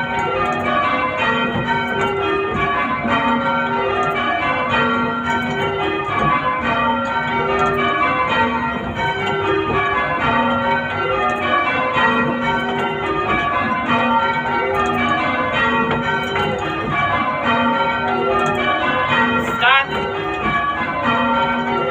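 A light ring of six church bells, the tenor only 5 cwt, rung full-circle in rounds: each bell struck in turn in a steady, repeating rotation of ringing tones.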